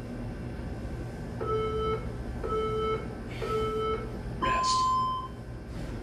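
Workout interval timer beeping: three short, lower beeps about a second apart, then one longer, higher beep, the countdown that ends the timed set.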